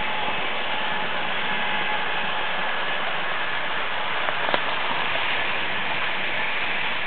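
Märklin HO model trains running on the layout: a steady rushing rattle of wheels on the track and the lit passenger coaches' hard pickup shoes sliding over the centre-stud contacts, with a faint motor whine and one sharp click about four and a half seconds in.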